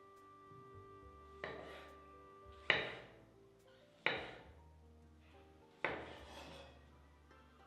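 Four sharp clatters of cookware, each trailing off within about a second, over soft background music with held notes.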